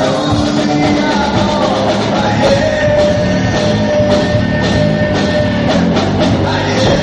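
Live rock band playing loud, with electric guitars and a drum kit and long held notes over the beat.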